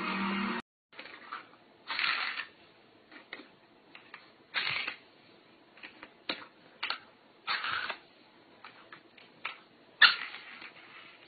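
A cat at play, making short scuffling and rustling noises at irregular intervals, the loudest about ten seconds in; music cuts off within the first second.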